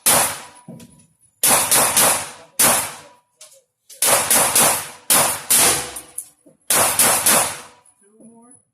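Rifle shots fired in quick clusters, about a dozen in all, each with a short echoing tail: AR-15-type rifles, including the double-barrel AR-15.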